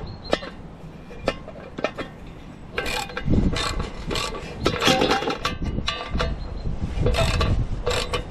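A ratchet spanner clicking as it drives a masonry screw bolt into a concrete wall. A few single clicks come first, then repeated bursts of rapid ratcheting from about three seconds in.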